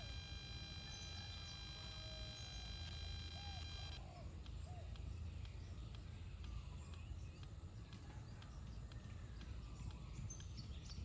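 Faint outdoor background with a low rumble and a steady high-pitched whine, with a few faint bird chirps in the first half.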